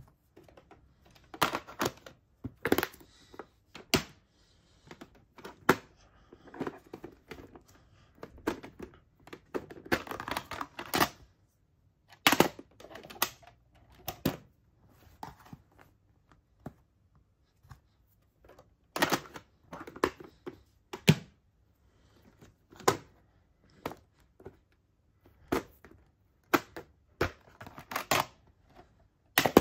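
Clear plastic VHS clamshell cases and cassettes being handled: irregular plastic clicks, clacks and rattles as cases are picked up, opened or shut, and set down, some in quick clusters.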